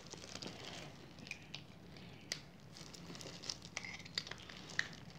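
Faint clicks and rustling as a clear plastic coin capsule holding a silver coin is picked up and turned over in the fingers, with a sharper click a little over two seconds in.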